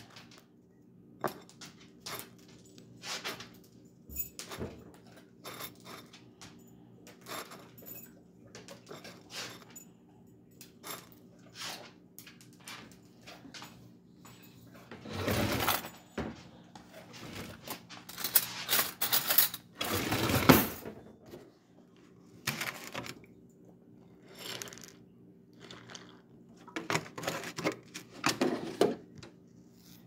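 A bowl of cereal being made and eaten: irregular clicks, clinks and crunches, with a few longer rattling bursts in the middle and near the end.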